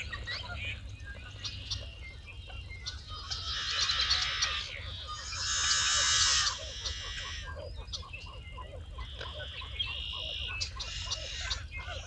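Marsh dawn chorus: many birds calling and singing over one another, with two louder stretches of dense, high chattering about three and five seconds in.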